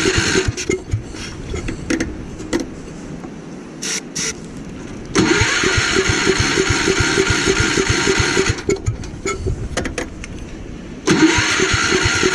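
Gravely Commercial 12 engine being cranked over in repeated attempts that do not get it running. Each try starts suddenly and lasts a few seconds with a steady pulsing, then falls away into ragged clicking. The engine will not keep running because of a fuel problem.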